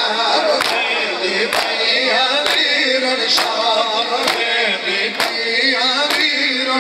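A noha chanted by voices, with sharp, even hand-strikes about once a second keeping its beat: mourners' chest-beating (matam).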